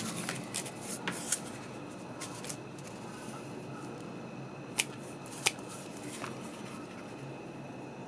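Scattered small clicks and scrapes of a tool working old electrical grease off the plastic parts of a 1989 Chevrolet truck dimmer switch. The two sharpest clicks come about five seconds in, over a steady low hum.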